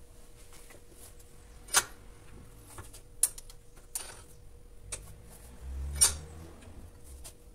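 A small iron bar knocking and clinking against a bench vise and a nylon form while it is bent by hand around the form: about five sharp separate metallic clicks, the loudest near the end, over a faint steady hum.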